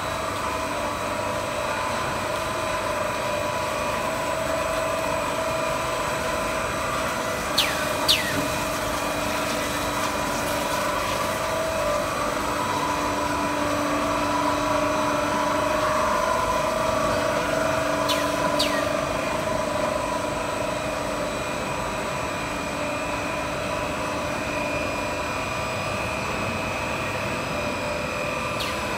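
Five-layer cast stretch-film extrusion line running: a steady machine drone with several constant tones. Two brief high falling squeals come about 8 seconds and 18 seconds in.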